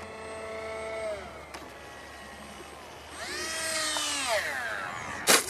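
Electric motor and propeller of a foam RC jet (2212 brushless motor) whining in flight. The pitch drops about a second in as the throttle comes back, then rises and falls again as the plane comes in to land and the motor spools down. A sharp knock near the end.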